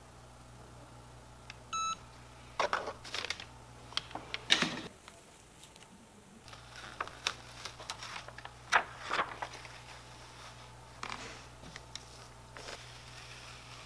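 Cricut EasyPress heat press giving one short beep as its timer runs out. After it come scattered rustles and crinkles of the paper cover sheet and the clear iron-on carrier sheet being handled and peeled back.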